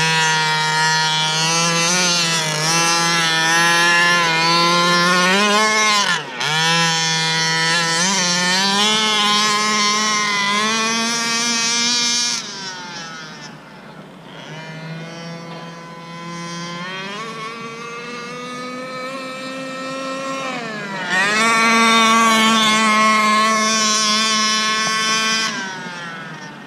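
Small two-stroke gasoline engine of a 1/5-scale Losi K&N Desert Buggy RC car running at high revs, its pitch rising and falling with the throttle. It cuts off sharply for a moment about six seconds in, is quieter for several seconds in the middle, comes back loud, then fades near the end.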